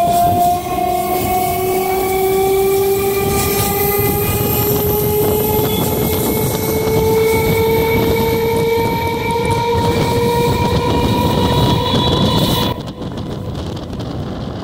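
Electric multiple unit (EMU) train's traction motors whining under running noise, the whine climbing steadily in pitch as the train accelerates. Near the end the whine cuts off suddenly, leaving a quieter rushing noise.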